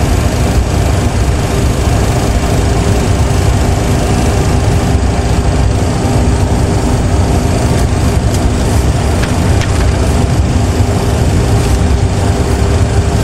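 Simulated cockpit sound of a Boeing 737 Classic taxiing: a steady low rumble of the jet engines at taxi power, with ground rumble. A faint steady hum sits above it, fading out in the middle and coming back near the end.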